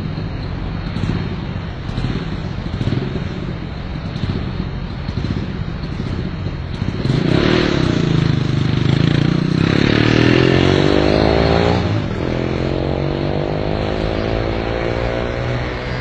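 Road traffic noise, with a motor vehicle's engine passing close by from about seven seconds in, its pitch rising before it drops away at about twelve seconds.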